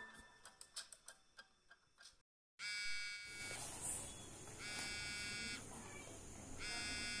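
Mobile phone ringing in a trouser pocket: a buzzy electronic ringtone in pulses of about a second, three times, roughly two seconds apart.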